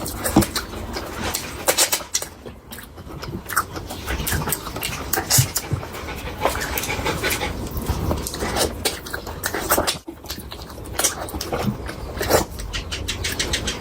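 Close-miked eating sounds: chewing and wet lip-smacking of curry, a dense, irregular run of short clicks and smacks with breathing between them.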